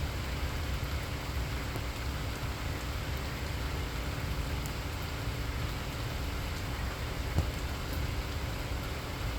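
Steady rainfall with scattered drop ticks over a constant low rumble, and a single sharp tick about seven seconds in.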